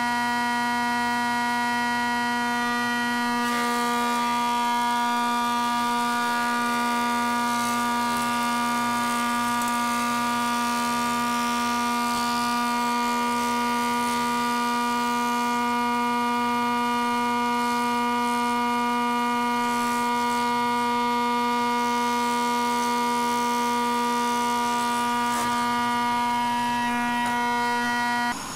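Jet 13-inch planer running with a steady, high whine of several tones while a board feeds through it. The sound cuts off abruptly near the end.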